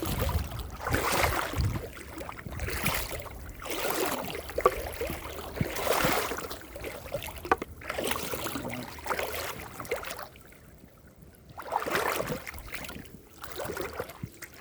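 Boots wading through shallow creek water, one splashing step about every second, with a pause about ten seconds in.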